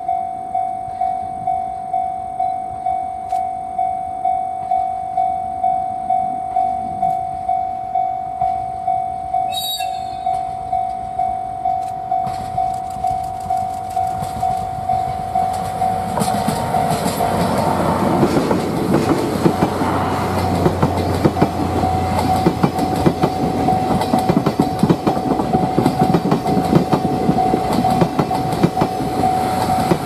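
Japanese level-crossing warning bell ringing in a steady rhythm, about one and a half strikes a second. From about twelve seconds in, a DE10 diesel locomotive hauling a rake of 12-series coaches comes up and passes close, its engine and the wheels' clickety-clack growing loud and drowning most of the bell, with a brief sharp sound about ten seconds in.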